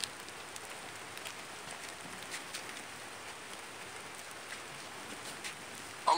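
Light rain pattering: a steady hiss with a few faint, scattered ticks.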